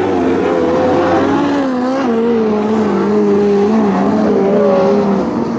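Lightning Sprint race cars' engines running on a dirt track, several engine notes wavering up and down in pitch as they lift off and accelerate.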